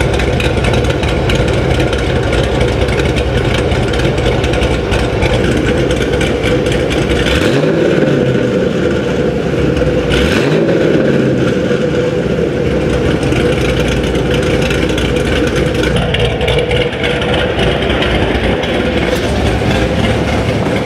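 Cammed 5th-generation Chevrolet Camaro SS's LS3 6.2-litre V8, fitted with a BTR Stage 3 camshaft, idling through its quad exhaust tips. It is blipped twice near the middle, each short rev rising and falling back to idle.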